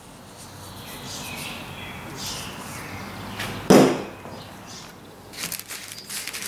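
Hands rubbing on a small plastic sample bottle as its label is pressed on, then one loud thump a little over halfway through as the bottle is set down on a wooden table. In the last second or so a plastic bag crinkles.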